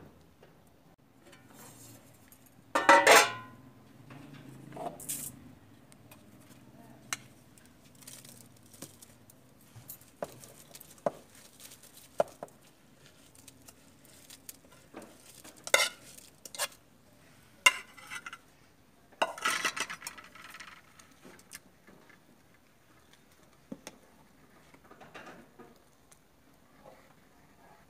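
Clattering of a stainless steel cooking pot and utensils: a loud metallic clang about three seconds in, as from the lid coming off, then scattered clinks and scrapes of a metal bowl and ladle against the pot as greens are tipped in and stirred.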